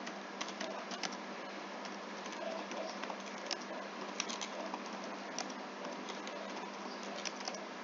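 Computer keyboard typing: irregular, separate keystroke clicks over a steady background hiss and faint hum.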